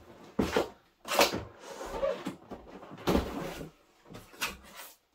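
Cardboard box being handled and its lid pulled open: about five short scraping and rubbing noises of cardboard sliding on cardboard.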